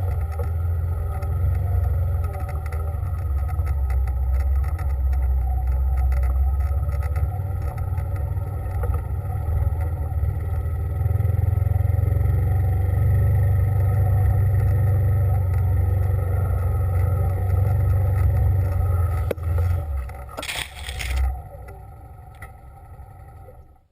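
A vehicle engine running steadily while driving, with a strong low rumble. About twenty seconds in it eases off with a brief rushing scrape, then the sound dies away.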